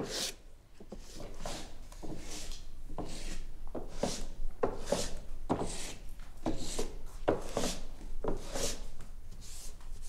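Hand-sanding a wooden boat hull with a sanding block: steady back-and-forth rasping strokes, a little under two a second. A single sharp knock opens it.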